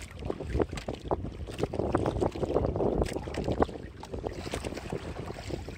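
Wind buffeting the microphone over choppy sea water around a small outrigger boat, with many short irregular knocks.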